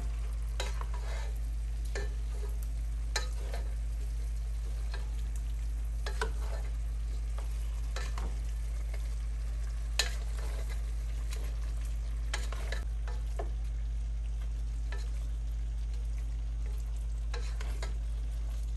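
A black slotted spoon stirring a chunky chicken and vegetable stew in a stainless steel pot: irregular scrapes and knocks of the spoon against the pot every second or two, over a steady low hum.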